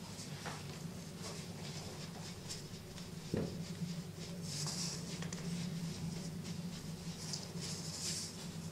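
Faint scratching and rustling of cloth puppets being handled and moved, with a single knock about three and a half seconds in, over a low steady hum.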